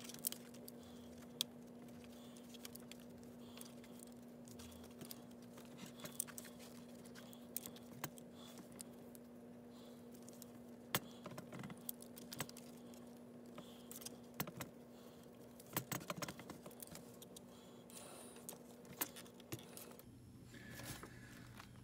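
Hands lacing paracord through the metal grommets of a canvas rifle cheek rest, making scattered light clicks, clinks and rustles as the cord is pulled through and tightened. A faint steady low hum runs underneath.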